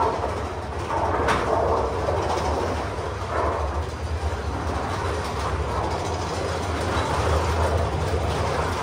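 Rail vehicle running, with a steady low rumble and a few clatters near the start.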